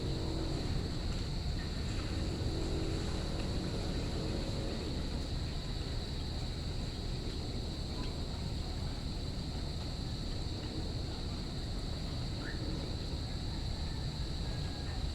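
Crickets chirping in a steady chorus, a constant high trill, over a steady low rumble of background noise.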